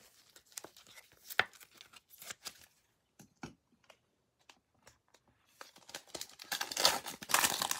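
Light scattered clicks and taps of cards being handled, then, from a little past halfway, the crinkling and tearing of a Panini Prizm trading-card pack wrapper being ripped open, growing louder near the end.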